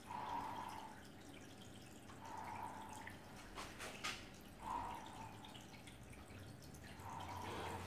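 Breathing through an MM1 gas mask and its corrugated hose to the filter: four slow breaths about two and a half seconds apart, each a short hiss carrying a faint tone. A few soft clicks come around the middle.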